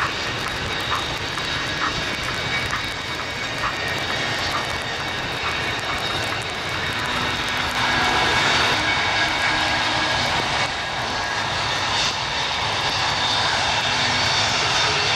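Kawasaki C-1 transport's twin turbofan jet engines running in flight, a steady jet noise with high whining tones that grows somewhat louder about eight seconds in.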